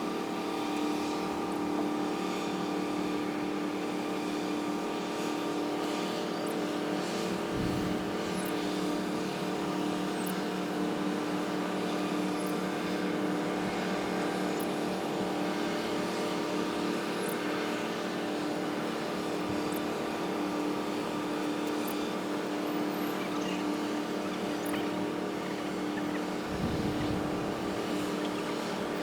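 A steady engine hum with several held tones, overlaid by a few faint clicks and two brief low rumbles.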